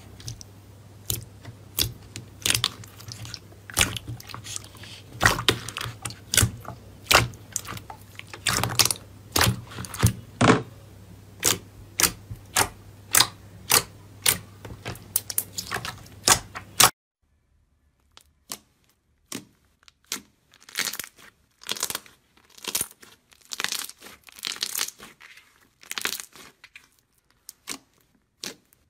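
Crunchy slime being pressed and squeezed, giving a quick, irregular run of sharp crunches and crackles. About 17 seconds in, a cut to another clip drops the low background hum, and the crackles come in sparser clusters.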